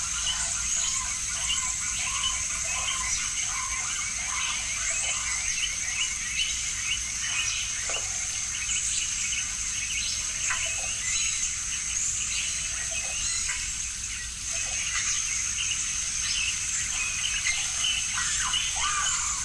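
Evening garden ambience: a steady high-pitched insect trill with many scattered short chirps and calls, over water trickling down a wall fountain.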